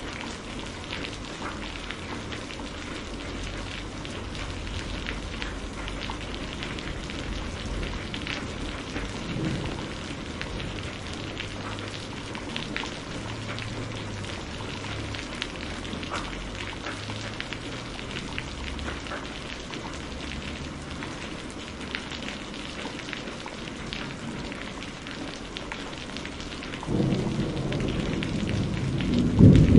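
Steady rain falling, with scattered drips and patter and a faint low rumble underneath. Near the end a louder roll of thunder comes in and swells.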